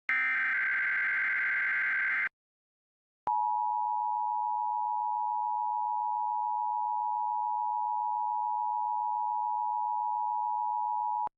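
Emergency Alert System SAME header data burst, a harsh digital warble about two seconds long. After a second of silence comes the EAS two-tone attention signal (853 and 960 Hz together): a steady tone held for about eight seconds that cuts off abruptly near the end.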